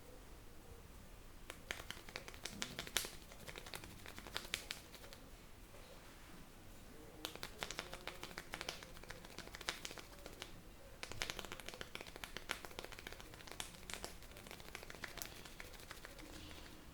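Hands working a person's scalp and hair in an Indian head massage: close crackling, crinkling friction with light taps, in three runs separated by short pauses.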